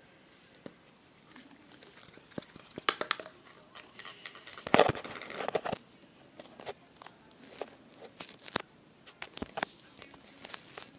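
Handling noises while making slime: scattered clicks and taps, with a louder crinkling, rustling stretch about four to six seconds in.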